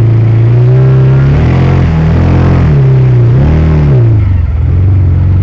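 Side-by-side UTV engine running loudly and revving through a mud hole, its pitch rising and falling twice, about a second and a half in and again about three and a half seconds in, as the mud tires churn.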